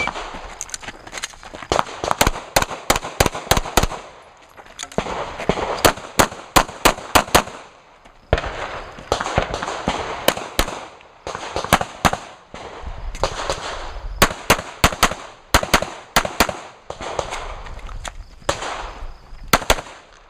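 Handgun shots fired in quick strings of several shots each, with pauses of a second or more between strings as the shooter moves between target arrays during a USPSA stage. The string opens on a short electronic beep from the shot timer.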